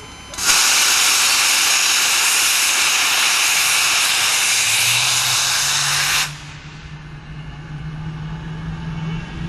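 English Electric Lightning's jet engine starting: a loud steady hiss cuts off suddenly after about six seconds, while a low hum rises underneath as the engine spools up.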